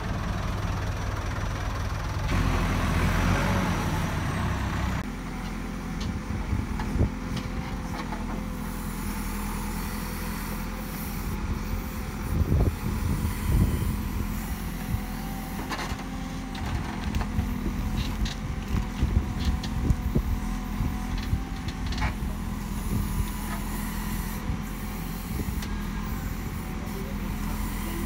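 JCB backhoe loader's diesel engine running steadily as the machine digs soil, louder for a few seconds near the start. Scattered knocks and clanks come from the bucket and arm working the earth.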